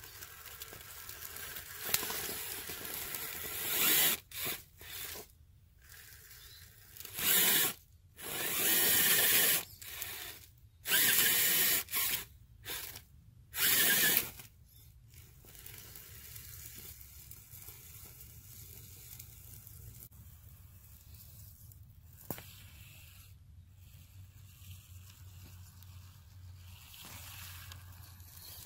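Electric RC rock crawler driven in short throttle bursts, its motor and gears whirring while the tyres crunch over dry leaves, grass and sticks. There is a run of loud, abrupt bursts in the first half, then only quieter background.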